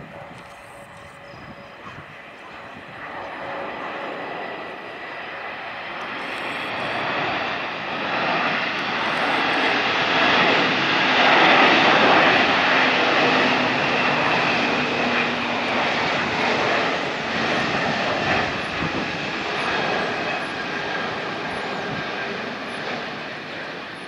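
Antonov An-124's four Progress D-18T turbofan engines on a low landing approach. The jet rush grows louder up to a peak about halfway through, with a steady whine over it, then slowly fades as the aircraft moves away.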